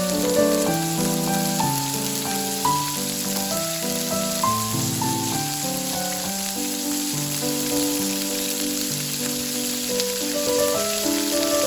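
Food frying in a hot pan, a steady sizzle, under instrumental background music with a melody.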